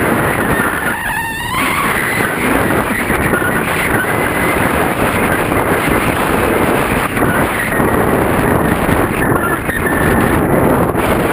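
Wind noise on the microphone of a camera mounted up on a paraglider's wing in flight: a loud, steady rush of airflow.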